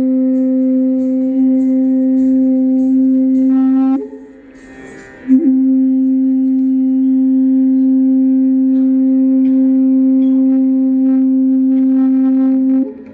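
Carnatic vocal music in raga Revati: a singer holds one long steady note and breaks off about four seconds in. The voice comes back in with a small bend in pitch and holds the same note again until near the end.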